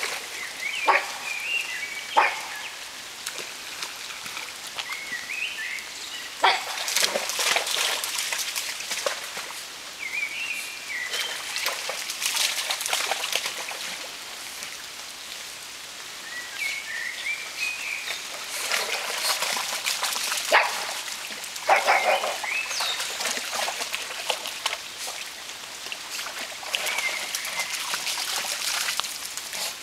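A pug and a Patterdale terrier splashing and paddling in shallow pond water, with several sharp splashes and short high yips every few seconds.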